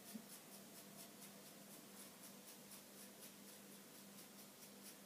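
Faint, rapid strokes of a razor comb shaving through short hair around the ear, about four a second, as the hairline there is carved out. A steady low hum sits underneath.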